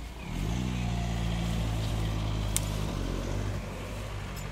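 A car engine running close by: its low hum comes in about half a second in, dips slightly in pitch and then holds steady. A single brief click about halfway through.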